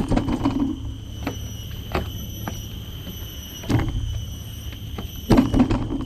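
Footsteps thudding irregularly on wooden boardwalk planks, the heaviest near the start and about four and five seconds in. Under them runs a steady, high-pitched buzzing of insects.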